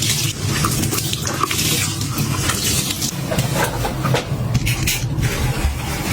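Household items being handled: a run of short clicks, scrapes and rustles over a steady low hum.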